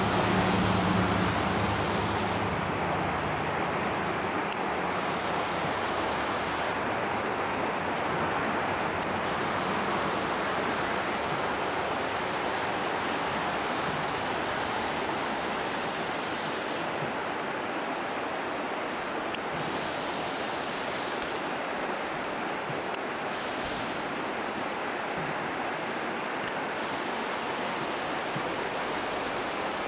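Steady rushing of a shallow, rocky creek flowing over stones.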